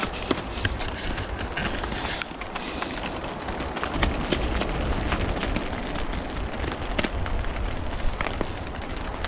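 Steady rain falling through the woods, with single drops tapping sharply and irregularly close by, over a low rumble of wind on the microphone.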